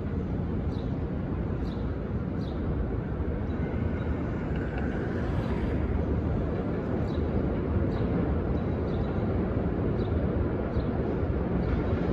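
New York City subway train approaching along the open-cut tracks: a steady rumble that slowly grows louder as it nears, with faint high ticks now and then.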